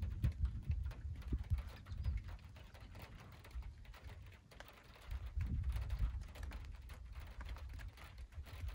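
Low rumble of distant thunder from a storm over open veld, swelling at the start and again about five seconds in, with faint scattered clicks over it.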